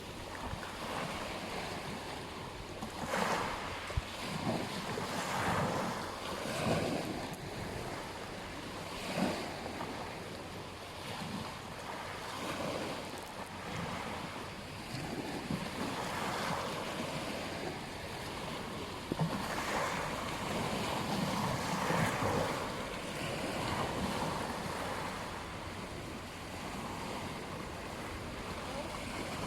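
Ocean waves breaking and washing on a beach, swelling and falling every few seconds, with wind buffeting the microphone.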